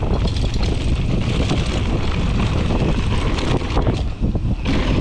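Wind buffeting the microphone of a mountain bike rider's action camera on a dirt trail descent, over the steady rumble of the tyres and frequent clattering knocks as the bike rattles over the bumps.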